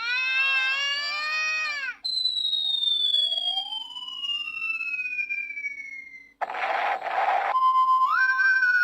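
Handheld electronic sound-effects machine playing a run of canned effects. First comes a warbling chord of tones for about two seconds. Then a long whistle falls steadily in pitch and ends in a short noisy burst, followed by a steady siren-like tone that steps up in pitch.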